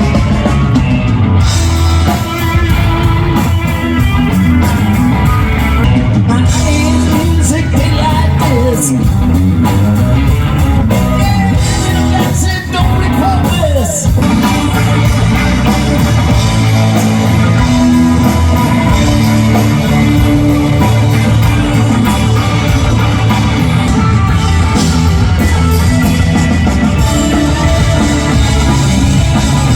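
Live rock band playing loudly: electric guitar, drum kit and a singing voice.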